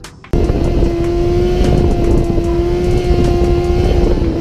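Motorcycle engine running at steady revs while riding, over wind noise. It starts abruptly a moment in and holds one steady pitch.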